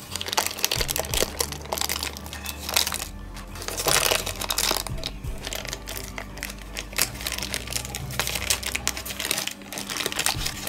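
Thin plastic sheet crinkling and rustling as it is peeled off a dried wall-putty leaf casting, over background music.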